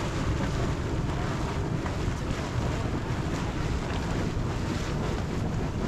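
Wind buffeting the microphone: a steady rushing noise, heaviest in the low end.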